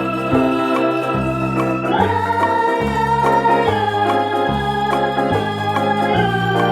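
Background music: sustained organ-like chords over a repeating bass line, with a chord change about two seconds in.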